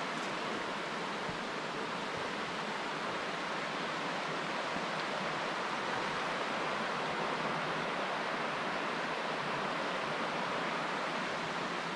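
Shallow, rocky river running over stones in small rapids: a steady rush of water.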